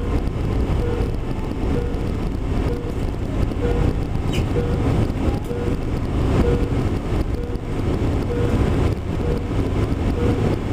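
A short electronic beep repeating about every 0.7 s over the steady rumble of an airliner cabin. It is a fault tone from the business-class cabin system that the cabin crew could not reset.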